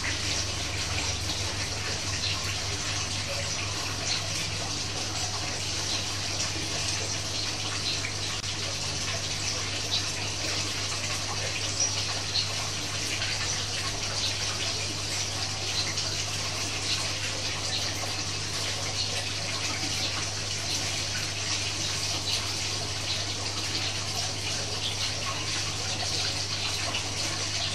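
Steady, water-like rushing hiss with a constant low hum underneath; it does not change throughout.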